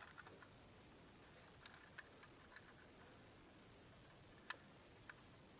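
Near silence with a few faint light clicks, one sharper click about four and a half seconds in: a small two-stroke scooter piston and its rings being handled.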